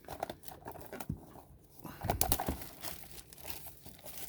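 Crinkling and rustling of plastic wrap and cardboard as sealed trading-card blaster boxes are handled, in irregular crackles.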